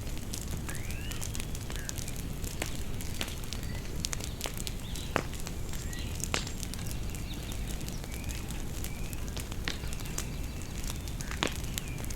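Bonfire crackling with scattered sharp pops, a few louder ones about five, six and eleven seconds in. Birds chirp briefly and repeatedly in the background.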